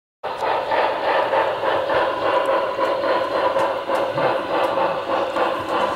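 Sound decoder in an HO-scale Union Pacific Big Boy 4-8-8-4 model steam locomotive playing steady, rhythmic steam exhaust chuffing through its small onboard speaker.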